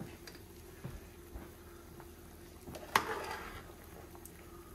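Large pot of chicken yakhni stock simmering faintly as a metal ladle is stirred through it, with a single sharp clink of the ladle against the pot about three seconds in and a few lighter taps before it.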